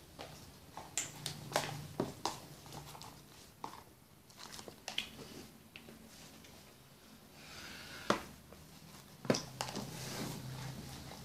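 Scattered clicks and taps of plastic tubs, caps and a metal spoon being handled while homemade slime is stirred in a plastic tub, with the sharpest knocks about a second and a half, two, eight and nine seconds in.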